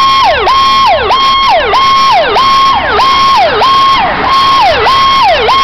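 Fire truck's electronic siren sounding loudly in a fast repeating cycle. Each cycle holds a high note, then drops sharply in pitch, about every 0.6 seconds.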